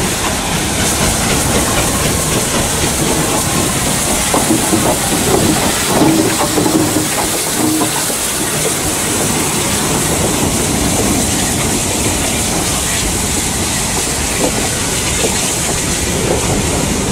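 Bulleid West Country class 4-6-2 steam locomotive 'Taw Valley' and its coaches rolling past at close range. Steady wheel clatter over the rail joints is mixed with the hiss of steam, loudest about six seconds in as the engine goes by, where there is a short squeal.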